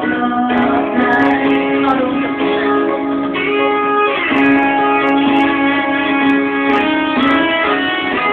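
Karaoke backing track playing from the room's sound system, an instrumental passage with no one singing over it.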